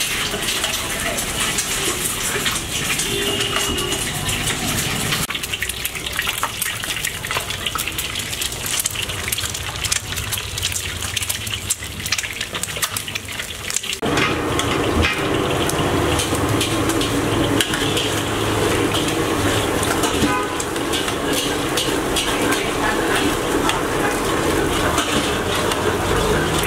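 Eggs sizzling and crackling as they fry in hot oil in a wok. Eggs are cracked in one after another. After about halfway it gets louder, and a metal ladle stirs and scrapes the scrambled eggs around the wok.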